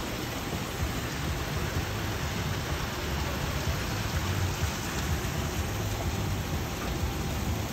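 Steady splashing of a small rock waterfall pouring into a pond, with a low rumble underneath.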